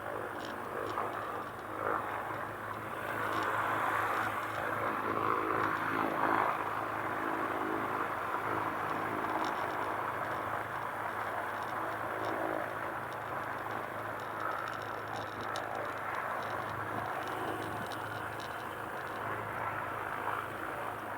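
Cessna 310's twin piston engines running at low power while taxiing, a steady drone heard from inside the cabin.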